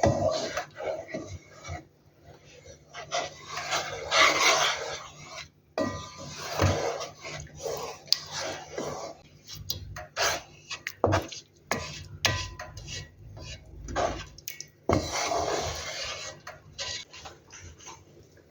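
Metal utensils knocking and scraping against a cooking pot and dishes, in irregular clinks and scrapes.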